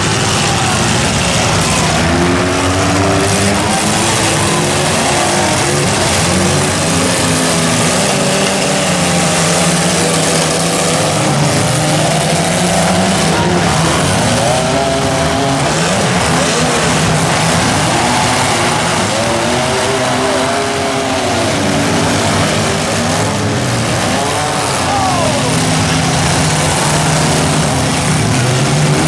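Several compact demolition-derby cars' engines revving together, loud and continuous, their pitches rising and falling as the cars accelerate and ram one another.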